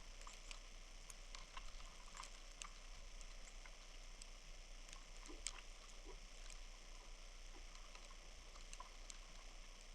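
Faint snowstorm ambience: a steady hiss with scattered light ticks and patter, irregular throughout.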